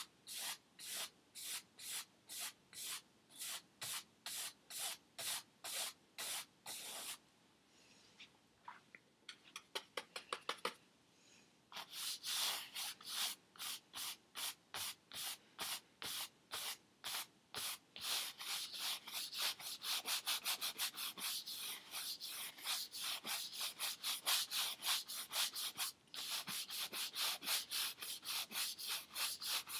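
Bristle paintbrush scrubbing back and forth on a stretched canvas in a steady rhythm of about two strokes a second. After a brief lull about seven seconds in, it resumes faster and busier from about twelve seconds on.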